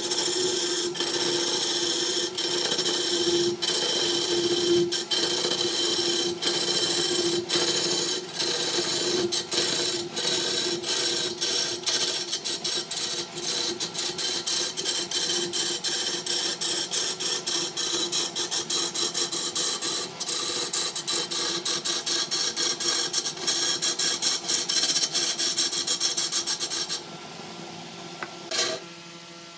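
A turning tool cuts into a large wooden blank spinning on a belt-driven wood lathe: a loud, scraping hiss of shavings tearing off, broken by rapid brief gaps, over a steady hum. Near the end the cutting stops suddenly and the lathe's hum carries on alone, much quieter.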